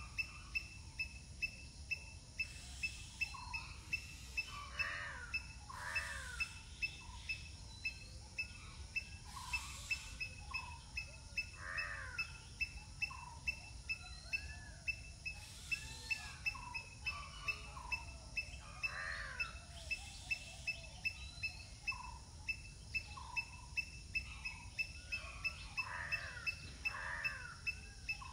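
Birds chirping in short arching calls, over a high pip that repeats about twice a second throughout and a low steady rumble.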